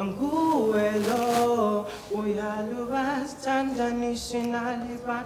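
A young man singing unaccompanied, holding long notes with a wavering vibrato in several phrases separated by short breaths.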